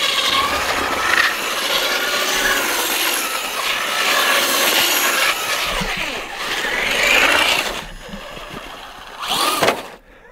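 Motor of a Traxxas Stampede electric RC truck whining, its pitch rising and falling as the throttle is worked while the truck slides on snow and ice. It falls quieter about eight seconds in and dies away near the end.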